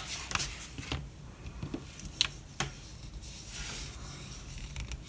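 A few scattered light clicks and taps from a small folding multi-tool and its thin nylon sheath being handled.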